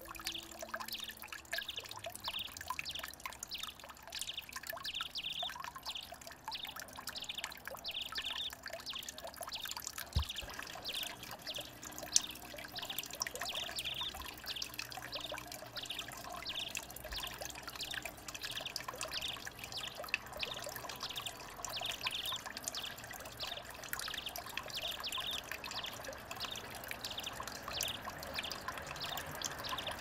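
Water trickling and dripping steadily over a stone garden water feature, broken by many small irregular splashes from a house sparrow bathing in its shallow pool. Two sharp clicks come about a third of the way through.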